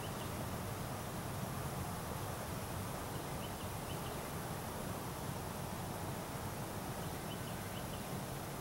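Steady outdoor background noise with a low rumble, and faint high chirps of a small bird or insect a few times.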